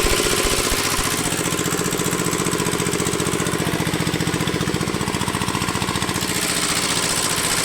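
Small engine running steadily at an even speed, with a fast, regular throb.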